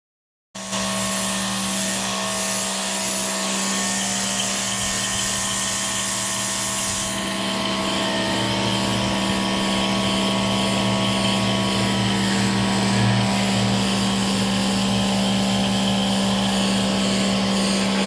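Greenworks 2300 PSI electric pressure washer running and spraying: a steady motor hum under the hiss of the water jet. It starts abruptly, and the hiss changes to a lower tone about seven seconds in.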